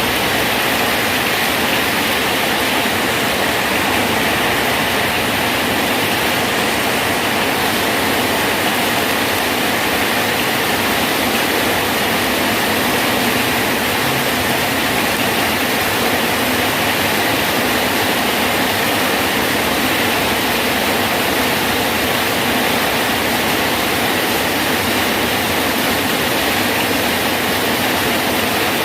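Steady rain falling on a bridge, an even unbroken hiss of rain with no breaks or single drops standing out.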